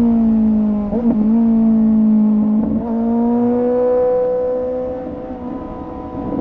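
A Suzuki GSX-S750's inline-four engine running through a Yoshimura R11 exhaust with the dB killer removed, under way. The pitch holds fairly steady, with brief breaks about a second in and again near three seconds, and the engine gets quieter toward the end.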